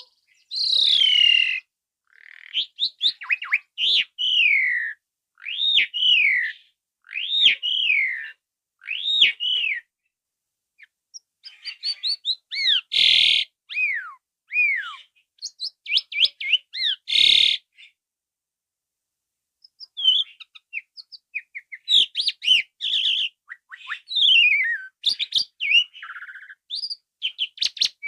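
Asian pied starling (jalak suren) in full song: a run of loud down-slurred whistles about every second and a half, broken by two harsh rasping notes, then, after a short pause, a quick jumble of varied whistles and chatter.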